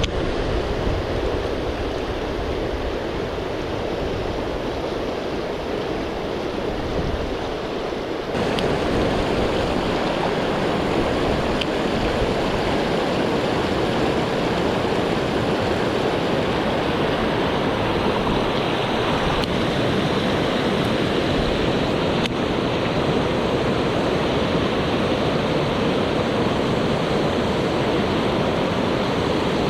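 Rushing water of a swollen mountain stream, a steady, loud flowing noise. It steps up abruptly and gets louder about eight seconds in.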